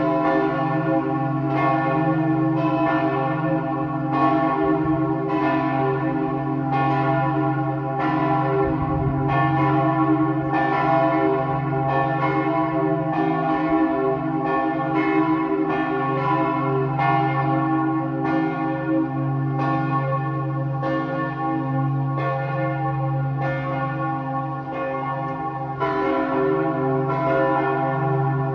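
Several large church bells ringing together in a full, continuous peal: strikes come about once a second and overlap, over the sustained deep hum of the largest bell.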